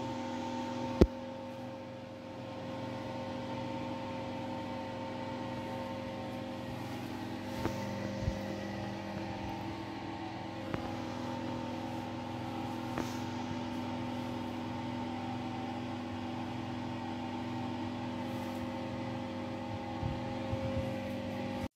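A small electric motor running with a steady hum, with one sharp click about a second in and a few faint knocks later.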